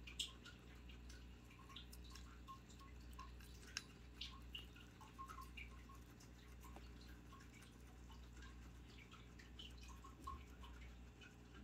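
Guinea pigs nibbling and chewing fresh wheat sprouts: faint, irregular crisp clicks and crunches, with a sharper click just after the start and another about four seconds in, over a low steady hum.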